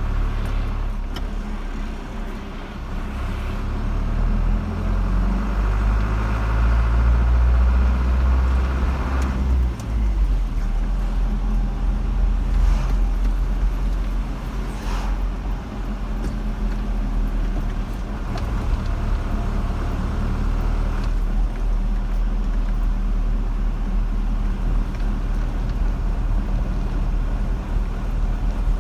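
A car driving along a road: steady engine hum and tyre noise. The engine note rises and grows louder between about 2 and 10 seconds in, then settles back.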